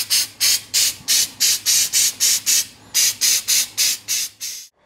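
Aerosol can of texture bed-liner spray fired in short, quick hisses, about four a second with a brief pause in the middle, stopping suddenly near the end. The sprays are dabbed on to leave a textured, speckled coat.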